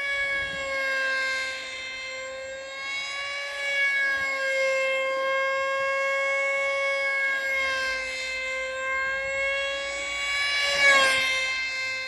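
Electric motor and propeller of a small foam RC park jet (RCPowers HalfPipe) whining steadily in flight, its pitch wavering slowly as the throttle and distance change. About a second before the end it gets loudest and dips in pitch as the plane passes close by.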